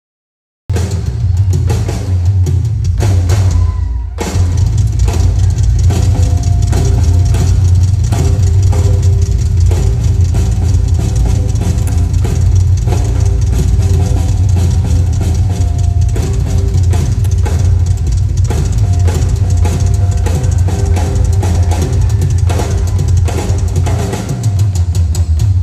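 A live band playing an instrumental passage, cutting in abruptly from silence about a second in. A loud drum kit of kick, snare and cymbals drives it, over a heavy bass line and sustained guitar tones.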